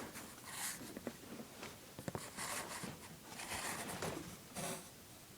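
Camera-handling noise: a series of soft brushing and scraping sounds as the recording device is moved and propped into place, with no motor running.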